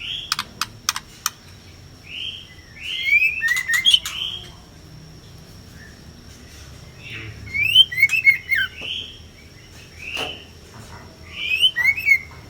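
White-rumped shamas (murai batu) calling in bursts of quick, sharp up-and-down chirps and whistles, three or four bursts with short pauses between; these are the harsh calls of a female scrapping with a male. A few sharp clicks come in the first second and a half.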